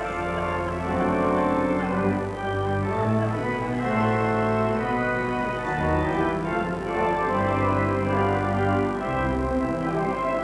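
Church organ playing held chords over a bass line that moves from note to note.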